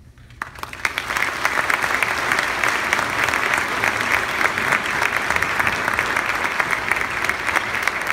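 Audience applauding: clapping starts about half a second in, swells within a second and stays steady.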